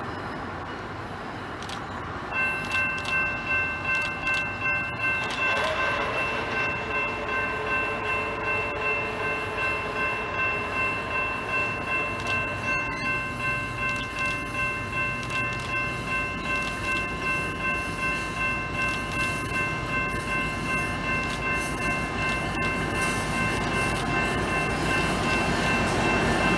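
Diesel locomotive's air horn held in one long multi-note chord as a Union Pacific EMD SD70ACe leads an intermodal train toward the listener; the chord pulses about twice a second. The train's rumble grows louder near the end as the locomotives come close.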